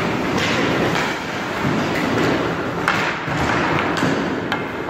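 Ice-rink sounds: skates and goalie pads scraping on the ice, with a few sharp knocks of hockey sticks or pucks in the second half.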